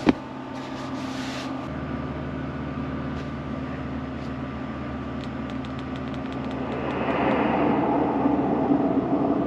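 Zero Breeze portable air conditioner running with a steady hum from its compressor and fan. There is a sharp click at the start, the hum changes pitch about two seconds in, and it grows louder and rougher near the end.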